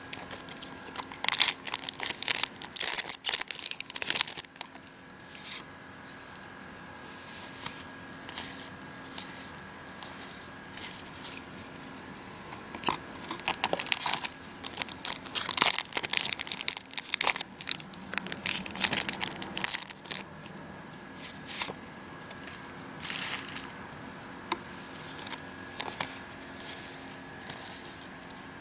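Trading-card booster pack wrappers being torn open and crinkled while packs and cards are handled. The crinkling comes in bursts, a cluster in the first few seconds and another about halfway through.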